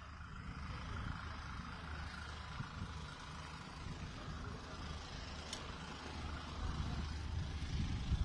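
Outdoor background noise on a handheld phone microphone: a steady, uneven low rumble with a light hiss, a short tick partway through and a brief low knock near the end.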